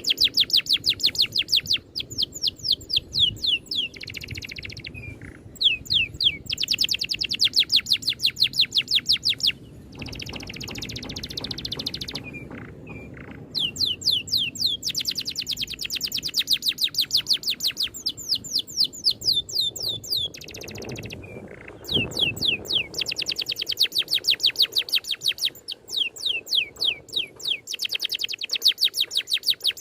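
A songbird's rapid rolling trill: long runs of sharp notes, each sliding down in pitch, about eight a second, broken by short pauses and a few buzzier phrases. It is a tight 'ngerol' roll of the kind played as masteran to teach caged songbirds.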